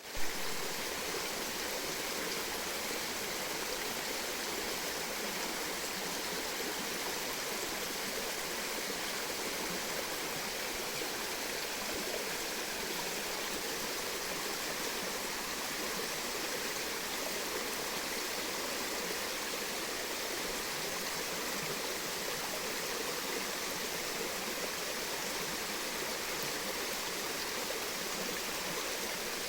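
Steady rushing of flowing water, even and unchanging throughout, with a brief thump at the very start.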